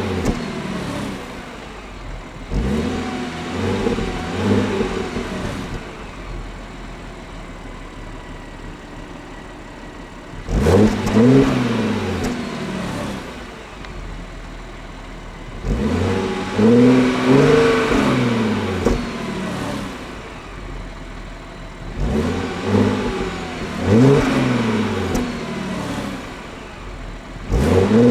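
Stock exhaust of a 2010 Audi A7 Sportback 3.0 TFSI supercharged V6, revved in about five bursts. Each rev rises and falls back, with quieter stretches of idle between the bursts.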